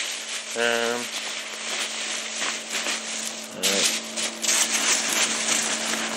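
Foam packing peanuts rustling and shifting as a hand digs through a box full of them. The rustle is continuous, with a short hum of a voice about half a second in and another just past the middle.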